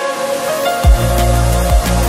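Electronic background music; a heavy, deep bass line with a beat comes in just under a second in.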